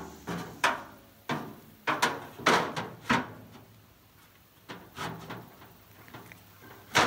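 Welded half-inch rebar grid clanking against the inside of a steel hot-water-heater tank as it is lowered and set in place: a string of sharp metal knocks with a short ring, thickest in the first three seconds, a few more about five seconds in, and a loud one near the end.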